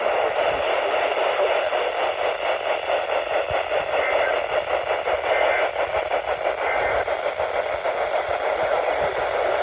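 Steady static hiss from a NOAA Weather Radio receiver after the spoken test message ends.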